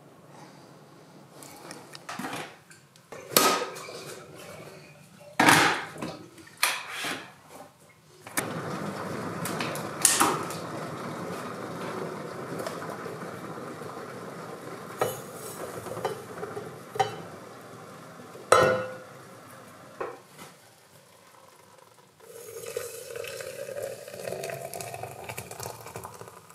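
French press coffee being made: the glass carafe and metal parts knocked and clinked on a steel counter, then a long stretch of steady rushing noise. Near the end, water is poured into the glass carafe, its pitch rising as it fills.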